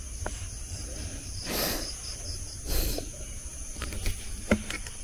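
Night insects chirring in a steady high-pitched chorus. Two short bursts of rustling noise come in the first few seconds, and a few sharp clicks come near the end.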